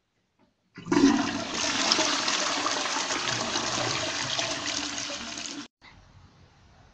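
Toilet flushing: a loud rush of water that starts about a second in and cuts off suddenly near the end.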